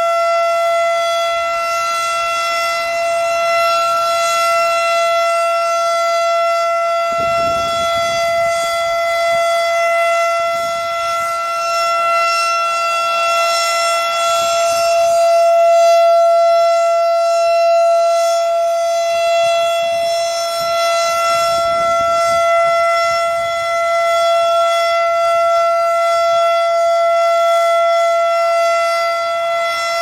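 Federal Signal Thunderbeam RSH-10 outdoor warning siren sounding a steady alert tone for a scheduled test: one unbroken pitch held without rising or falling, its loudness swelling and easing slightly.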